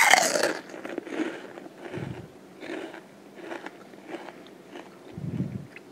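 Crispy fried-chicken crust crunching and crackling as a fried drumstick is broken open, a series of separate crunches roughly a second apart. It opens with a loud, short falling sound.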